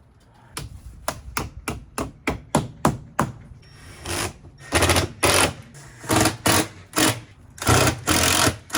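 Power drill run in a string of short bursts, pre-drilling and driving a screw into the camper's wood framing. The bursts begin about four seconds in, after a quick run of sharp taps.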